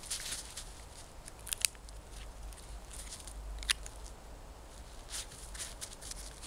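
A poodle's paws and snout crunching and scraping in crusty snow in short irregular bursts, with two sharp clicks about one and a half seconds in and near four seconds.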